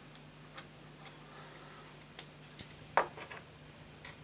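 Small scattered clicks and ticks of fingers handling tiny metal parts on a 3D-printed plastic model locomotive chassis, with one sharper click about three seconds in. A low steady hum sits underneath.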